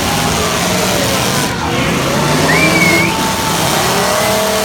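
Several demolition derby cars' engines running and revving together, their pitches rising and falling over a dense wash of noise, with a brief high wavering tone about halfway through.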